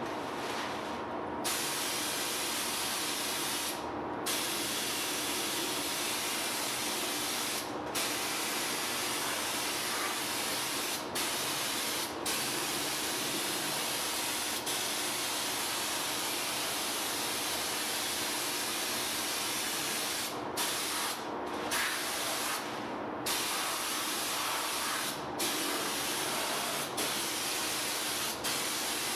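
Gravity-feed air spray gun spraying db Skin sound-deadening coating: a steady hiss of compressed air and spray that breaks off for short moments several times as the trigger is let go, more often near the end.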